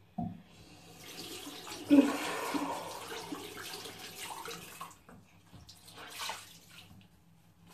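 Water running from a bathroom tap into a sink, with a louder splash about two seconds in; the flow stops about five seconds in, leaving a few small splashes.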